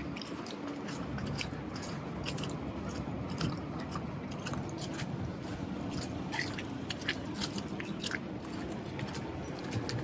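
Footsteps in fresh snow and slush: short, sharp crunches at irregular intervals over a steady low background rumble.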